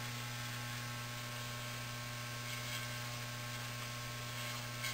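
Corded electric hair clipper running with a steady low buzzing hum, held against the hairline as it edges it.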